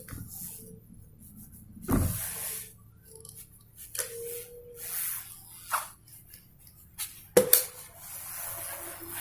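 Handling noises from working a tube of silicone sealant in its applicator gun along the induction cooker's base: scattered clicks, rustles and short hisses, with two sharper knocks about two seconds in and again about seven seconds in.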